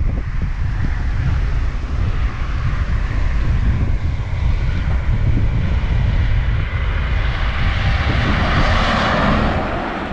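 Wind and road noise on a moving motorcycle: heavy wind buffeting on the microphone over a steady rush, swelling louder about eight seconds in.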